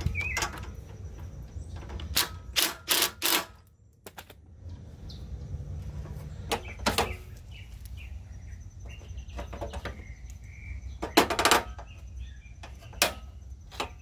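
Clusters of sharp clicks and rattles from hands fitting hardware and hose to an aftermarket transmission cooler mounted against the radiator, over a steady low hum.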